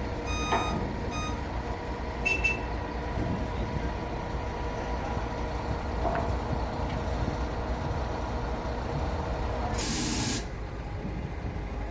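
Heavy machinery running with a steady hum, with a repeating beep that stops about a second in. About ten seconds in comes a short, loud hiss of released air lasting about half a second.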